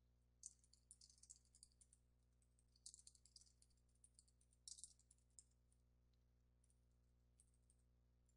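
Faint computer keyboard typing in three quick bursts during the first half, then only a few scattered key clicks.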